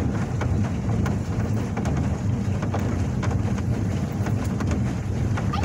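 Boat under way on open water: a steady low rumble of engine and wind buffeting the microphone, with scattered crackles.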